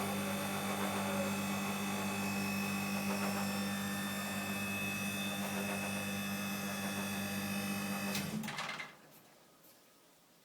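Bristol refrigeration compressor on a condensing unit running with a steady hum, then cutting out about eight seconds in as it finishes pumping down.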